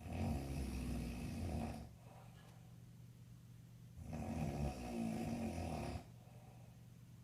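A man snoring in his sleep: two long, loud snores about four seconds apart, each lasting about two seconds.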